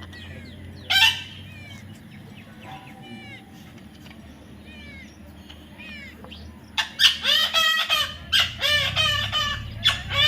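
A parrot calling: one loud harsh squawk about a second in, soft repeated chirps, then from about seven seconds a rapid run of loud, shrill calls.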